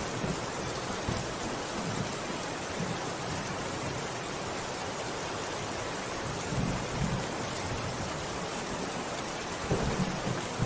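Steady rain, an even hiss of falling drops, with a few short low rumbles, the loudest about seven seconds in and near the end.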